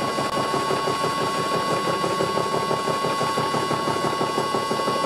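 80 mm Chinese shell-type face mill with APMT carbide inserts, spun by a vintage Karger lathe, face milling a steel block on a light 0.5 mm-deep pass. Each insert strikes the work in turn, giving a rapid, even hammering pulse over a steady high whine.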